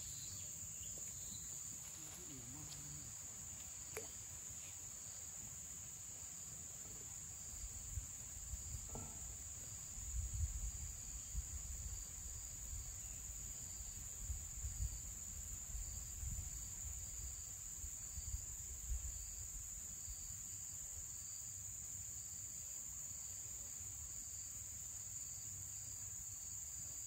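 Insects droning steadily at a high pitch, with a fainter chirp repeating about once a second. A few low rumbling bumps come in around the middle.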